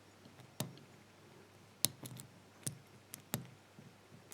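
Faint, sharp metallic clicks, about four of them at irregular intervals, as a lock pick works the pin stack in the keyway of a brass pin-tumbler padlock under tension.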